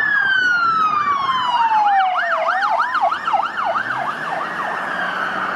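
Police car siren: a long falling tone, with fast rising-and-falling warbles of about three a second running over it and on after it, getting a little quieter in the last second or so.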